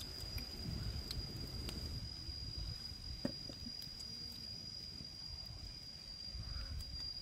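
A steady, high-pitched insect drone over a low rumble, with a few faint clicks and one sharper click about three seconds in.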